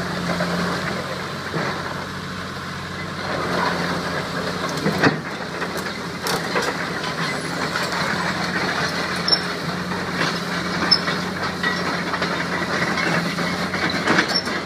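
Isuzu diesel engine of a Hitachi EX200-5 hydraulic excavator running steadily while the machine turns and travels on its tracks, with a sharp knock about five seconds in and a few lighter clicks.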